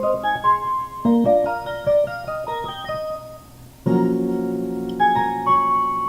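Samsung SGH-J700 polyphonic ringtone music played back as MIDI on piano-like synth voices. A phrase of quick short notes plays and starts again about a second in. About four seconds in it drops off briefly, and a louder passage of held chords with a melody on top begins.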